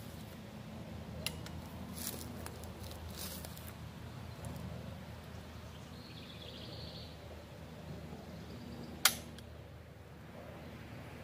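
A single gunshot about nine seconds in, with a short echo: a .357 Magnum cartridge fired through a chamber insert in a single-barrel break-action shotgun. Before it come a couple of light clicks from handling the gun.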